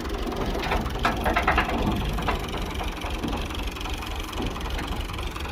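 Tractor-powered wheat thresher running: a steady low drone of machinery with a burst of clattering, ratchet-like mechanical clicks in the first two seconds.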